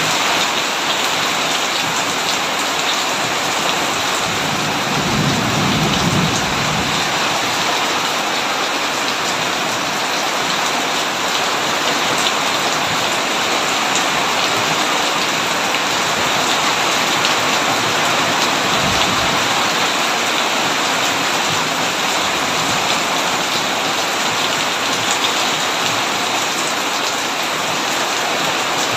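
Heavy rain falling steadily on a tin roof, with a low roll of thunder about five seconds in and a short, fainter low rumble near the middle.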